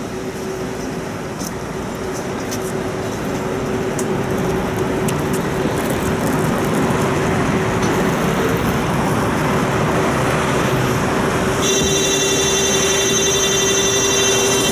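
Tram standing at a stop with its doors open: steady road traffic and street noise over a low steady hum, growing louder. About twelve seconds in, a shrill continuous buzzer starts, the warning that the tram doors are about to close.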